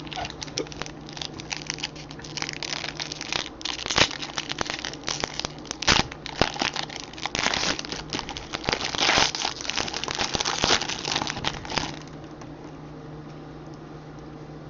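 The wrapper of a baseball card pack crinkling as it is handled and opened by hand, with many sharp crackles among the rustle. The crinkling stops about twelve seconds in, leaving a low steady hum.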